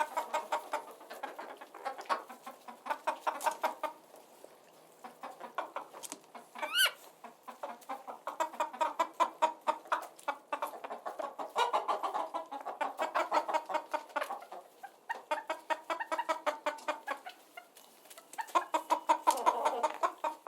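Chickens clucking in quick repeated runs with short pauses between them, and one sharp, high, rising squawk about seven seconds in.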